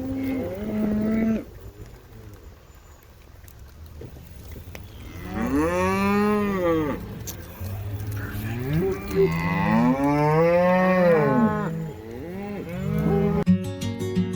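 Cattle mooing: a short call at the start, then two long, drawn-out moos about five and ten seconds in. Guitar music comes in just before the end.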